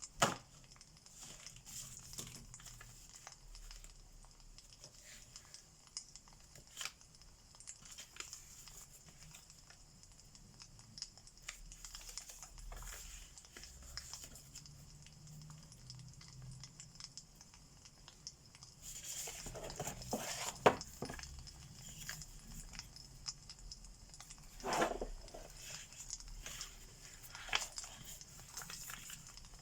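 Wood fire crackling and popping in irregular small clicks over a soft hiss, with a few louder bursts of crackle about two-thirds of the way through.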